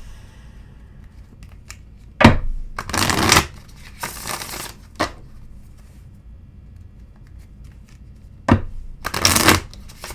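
A deck of tarot cards being handled on a tabletop: two sharp taps, each followed by about half a second of shuffling rustle, with a few softer rustles and clicks between.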